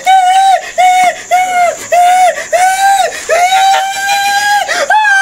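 A man wailing in a high, crying voice: a run of short sobbing cries about two a second, then a long drawn-out cry in the second half and another near the end.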